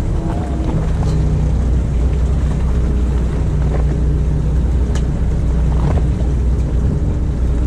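Fishing boat's engine running with a steady low drone, with a couple of faint clicks about five and six seconds in.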